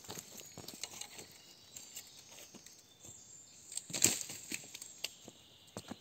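Irregular rustling and crackling of dry leaf litter and twigs, with one louder crunch about four seconds in.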